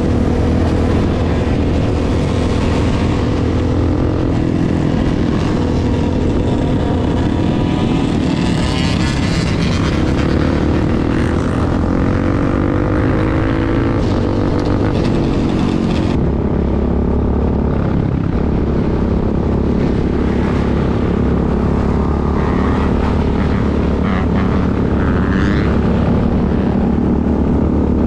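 Engines of the rider's own quad and a pack of quads and dirt bikes running at highway speed, heard from the quad's handlebars: a loud, steady engine note whose pitch rises and falls with the throttle, over a rush of wind noise. The high hiss drops away suddenly about sixteen seconds in.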